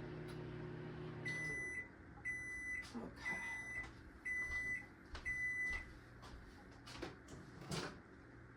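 A microwave oven's running hum stops about a second and a half in, and then five high beeps follow about a second apart, signalling that the heating cycle has finished. A couple of light knocks follow near the end.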